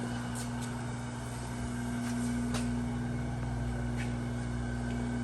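Steady electric-motor hum of a Chevalier FCG-610 tool and cutter grinder running, with a few light clicks.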